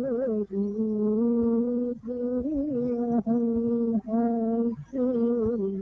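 A man's solo voice chanting a hymn unaccompanied. He holds long, steady notes with small wavering melodic turns, broken by short pauses for breath.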